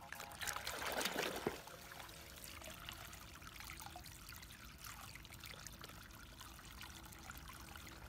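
Water splashing in a plastic basin as a toy car is swished through it by hand, loudest in the first second and a half. After that comes a steadier trickling and pouring of a stream of water running into the basin.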